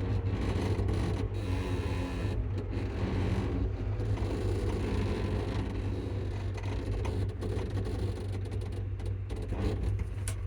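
ScotRail Class 334 electric multiple unit running, with a steady low rumble and hum from its direct-drive traction motors and running gear heard from inside the carriage.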